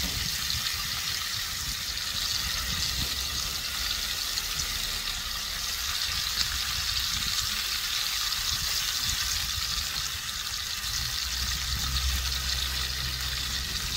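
Sauce-coated pork spare ribs sizzling steadily as they sear on the heat.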